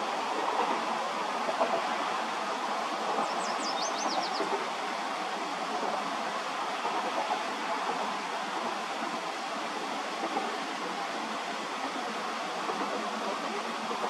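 Steady rolling noise of a passing freight train. About three seconds in, a bird sings a short run of quick, high, downward-sweeping notes.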